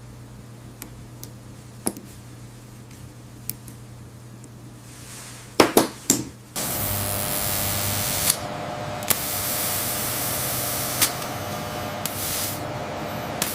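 Workshop machinery: a low hum with scattered sharp clicks, a few loud clacks a little over halfway in, then a loud steady hiss like a blast of compressed air or spray with occasional clicks.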